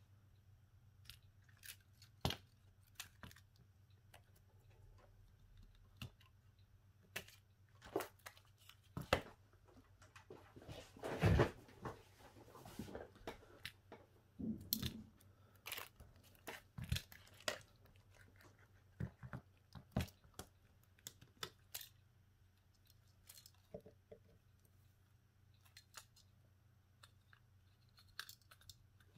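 Scattered light clicks and taps of small tools and parts being handled while a Xiaomi Redmi 8A phone is worked on, with a rasp lasting about a second near the middle as the loudest sound.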